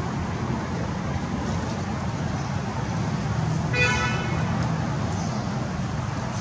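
Steady outdoor background rumble throughout, with a single short pitched toot about four seconds in.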